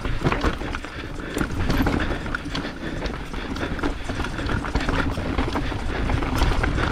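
Nukeproof Giga mountain bike riding rough singletrack: a steady low rumble of tyres and wind on the action camera's microphone, with a constant irregular clatter of clicks and knocks from the bike rattling over roots and rocks.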